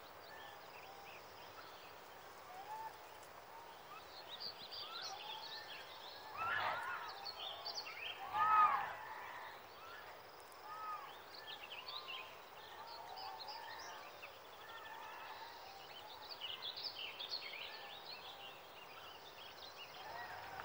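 Outdoor ambience with many short, high bird chirps and twitters over a faint steady background. Two louder calls stand out, about six and a half and eight and a half seconds in.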